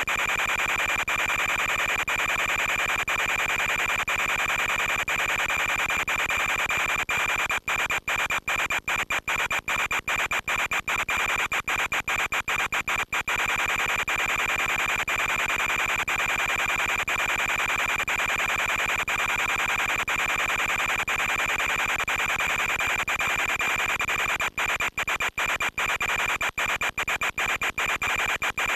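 Steady radio static with a constant high whine, the sound of an analog FPV video downlink's audio channel. It cuts out in many short gaps, clustered about 8 to 13 seconds in and again near the end, as the signal breaks up.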